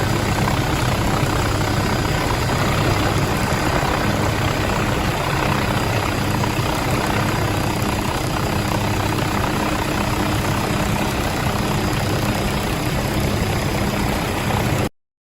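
Loud, steady machine noise with a constant low hum, cutting off suddenly near the end.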